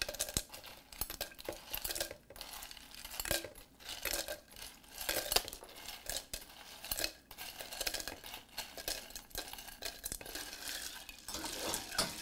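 Ice cubes clinking against the sides of a tall glass pitcher of water as it is stirred with a long spoon: irregular light clinks and knocks.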